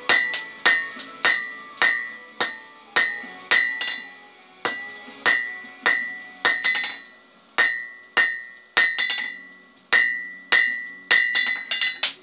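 Blacksmith's hand hammer striking red-hot steel bar stock on a steel anvil, about two blows a second, each blow followed by the anvil's high ring. Near the end the blows come in a quicker flurry.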